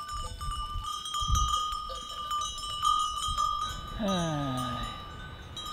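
Bells on a grazing flock of sheep and goats clinking and ringing on and off. About four seconds in comes a short, low call that falls in pitch.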